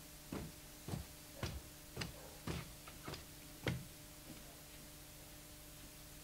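Footsteps of someone in trainers walking down a carpeted staircase: about eight soft thuds, roughly two a second, stopping a little under four seconds in. A faint steady hum runs underneath.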